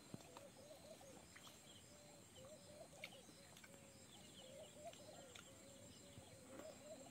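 Faint birdsong in a quiet natural setting: a low warbling call that wavers on and on, with brief high twittering chirps about a second and a half in and again around the middle.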